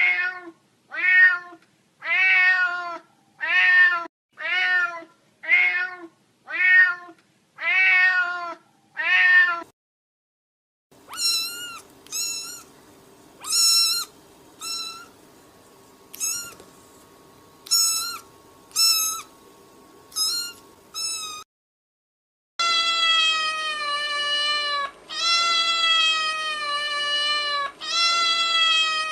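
Domestic cat meowing, in three separate runs with brief silences between: first short meows about one a second, then higher, thinner meows over a faint steady hum, then long drawn-out meows that run into one another.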